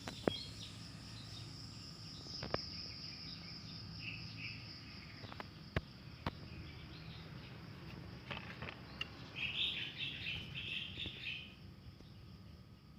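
Outdoor ambience: a steady high insect drone with bird chirps, loudest in a burst of chirping about two-thirds of the way through. A few short sharp clicks stand out earlier.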